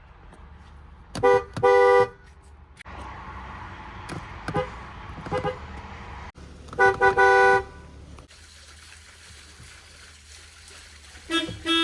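Car horns of FCA (Fiat Chrysler) vehicles, each sounding two pitches together, honked in short blasts: a quick tap and a short honk about a second and a half in, faint toots around four to five seconds, a longer honk of a few pulses about seven seconds in, and another honk near the end.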